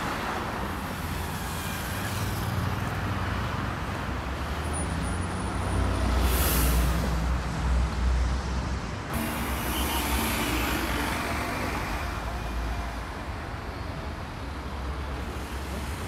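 Steady city road traffic: buses, taxis and cars passing with a continuous low engine rumble, and a short hiss about six seconds in.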